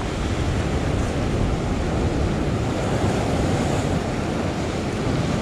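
Ocean swell surging up and washing over a rock ledge, a steady rush of surf, with wind buffeting the microphone.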